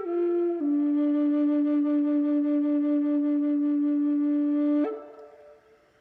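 Pine D drone flute, tuned to A440, playing: a short note, then a lower note held steadily for about four seconds, a brief higher note, and the sound dies away to quiet near the end.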